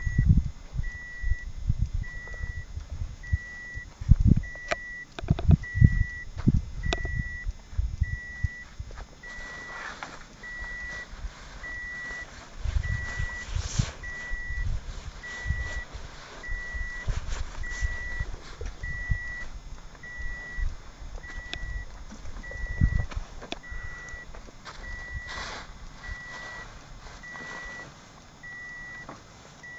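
A car's electronic warning beep repeating evenly, about once a second, over low knocks and rustling from gear being handled in the open boot.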